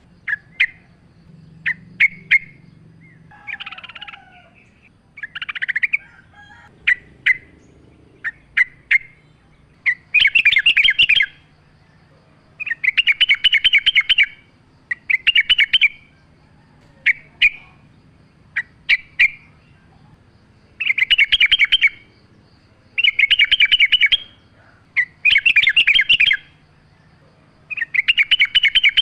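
Yellow-vented bulbul (trucukan) singing: short separate chirps at first, then, from about a third of the way in, rapid bubbling phrases about a second long, repeated every couple of seconds.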